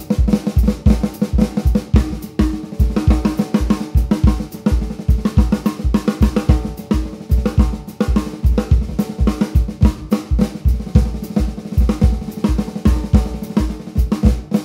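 Joyful Noise Luminary 14x6.5 brass snare drum played in fast rudiments and rolls over a steady, repeating bass drum ostinato.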